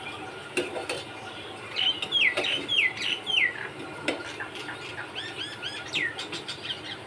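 Small birds chirping: a run of four sharp, falling chirps in the middle, then quicker curled calls near the end. Under them come a few light clinks of a metal mesh skimmer against the metal cooking pot as it scoops whole spices out of the syrup.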